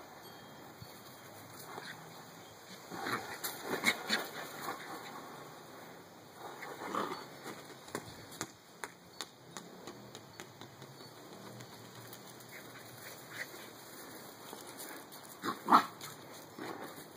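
Pembroke Welsh Corgi puppy making short grunting and yipping sounds in brief bursts while it plays: a cluster about three seconds in, another about seven seconds in, and the loudest near the end. Light taps and knocks come between them.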